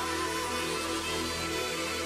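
Background electronic music with long held notes and a wavering melody line.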